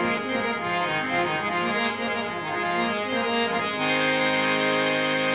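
Harmonium playing a melodic instrumental introduction to a ghazal, moving from note to note, then holding a steady chord from about four seconds in.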